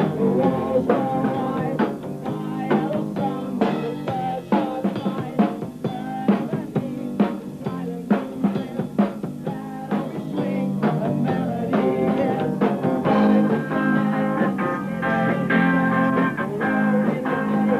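Rock music: a drum kit beating a steady rhythm under sustained guitar chords.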